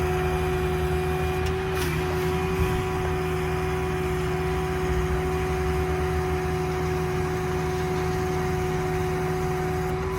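Truck's 6.4 Power Stroke diesel running with the PTO-driven hydraulic pump engaged for the crane, a steady low rumble under a constant pitched hum from the hydraulics. A brief click and a slight dip in the hum about two seconds in.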